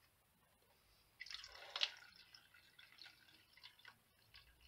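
Copper-and-vinegar solution poured from a can into a paper coffee filter in a plastic pour-over cone: a short splashing pour about a second in, then scattered drips falling through into the plastic tub below.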